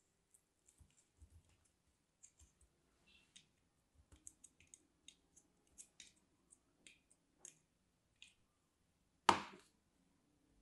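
Brittle translucent pieces cracking and snapping as fingers press them through the wire grid of a plastic vegetable dicer: a scatter of small crisp clicks, then one much louder crack near the end.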